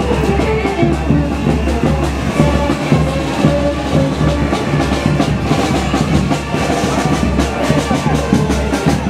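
Music with a steady drum beat and a strong bass line.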